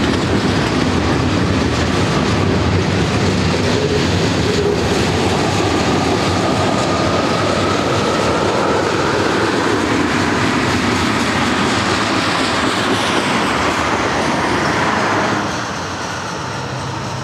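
Freight cars of a manifest train rolling past: a steady heavy rumble of steel wheels on rail with clickety-clack over the joints and a faint wheel squeal in the middle. The sound drops off near the end as the last car goes by.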